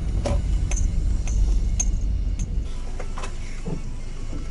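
Low engine and road rumble inside a slowly moving car, with a regular ticking about twice a second from the turn-signal indicator as the car turns in, and a few short high chirps in the first half.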